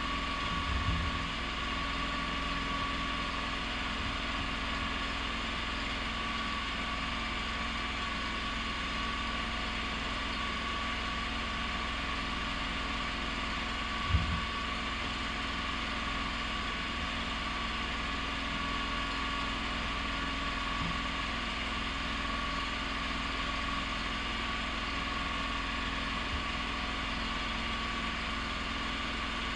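A steady engine-like mechanical hum, running evenly at an idle, with one short thump about fourteen seconds in.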